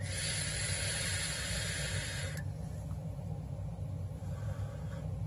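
Steady hiss of a long draw through a vape tank with the coil firing at 70 watts, cutting off sharply about two and a half seconds in. A faint exhale follows near the end.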